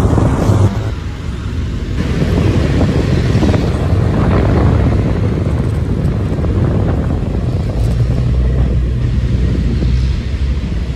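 Wind rushing and buffeting over a phone microphone on a moving motorcycle, over the low rumble of the motorcycle's engine and the surrounding traffic.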